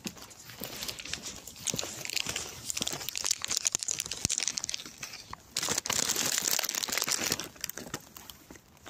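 Crinkling and rustling close to the microphone, crackly and full of small clicks, in two loud stretches separated by a short lull about halfway through.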